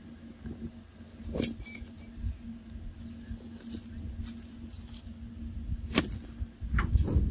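Rustling and a few sharp cracks of dry leaves and twigs, the loudest about six seconds in, over low rumbling handling noise on the microphone and a faint steady hum.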